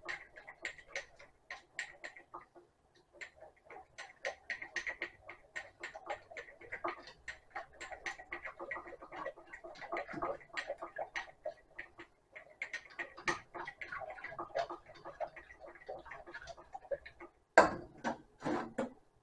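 Whisk beating a thick, creamy soup base in a nonstick pot, a fast irregular ticking and clicking with a few short pauses, as milk is worked into the base cup by cup. Near the end, a few louder knocks as the whisk is set down in the pot.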